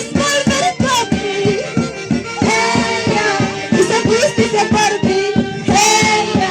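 Huancayo folk orchestra playing a lively tune: held melody notes over a steady, quick beat.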